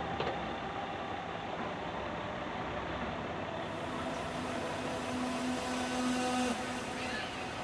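An old log truck's engine running in a steady rumble with hiss. A held, even tone sounds over it from about halfway through and stops about a second before the end.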